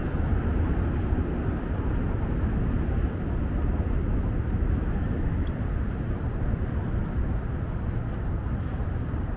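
Steady low outdoor city rumble, with no single event standing out.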